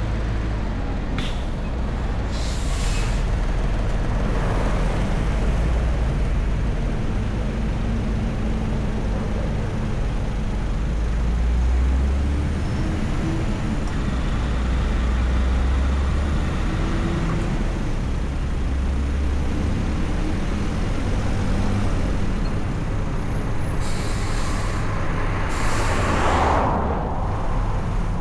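Car driving in slow road traffic: a steady low rumble of road and engine, with the engine note rising and falling a little midway. A few brief hissing bursts come and go, twice near the start and twice near the end, the last the loudest.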